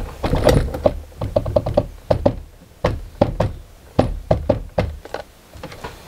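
Irregular knocks and clicks as a machined aluminium adapter boss is pushed and worked down onto a turbine shaft, with metal parts clinking against each other and the plastic turbine housing. Some knocks come singly, others in quick clusters.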